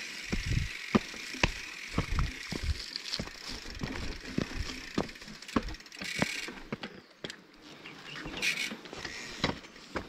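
Mountain bike rolling down a rough, rocky dirt trail: tyre noise with irregular knocks and rattles from the bike as it bounces over stones and bumps, and two brief hisses, one about six seconds in and one near the end.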